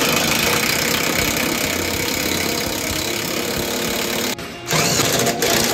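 Electric impact wrench hammering a bolt tight on a scooter frame's shock-absorber mount, running steadily for about four seconds, pausing briefly, then giving another short burst near the end.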